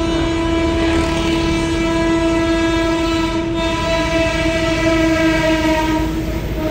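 Train horn sounding one long, steady blast from a train passing behind a wall. The blast breaks off near the end.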